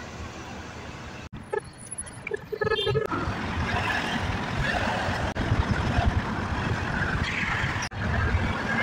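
Road and engine noise inside a car moving at highway speed: a steady low rumble with hiss. The sound drops out briefly twice.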